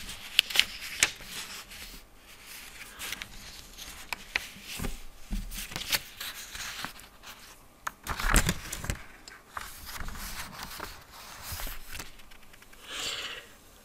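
Irregular small clicks, taps and rustling scrapes close to the microphone, as of a person handling things at a desk, with a louder scrape about eight seconds in.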